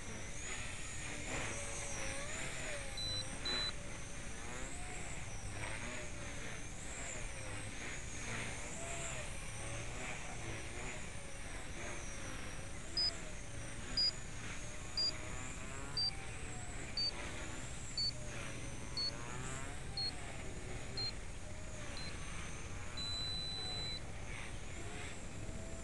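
Blade 130X RC helicopter in flight, its 8000 kV brushless main motor and rotor whining with a pitch that rises and falls as it manoeuvres, governed at 100% throttle. Over it, about ten short electronic beeps sound one a second, each a little lower, ending in a longer beep near the end; two short beeps come early.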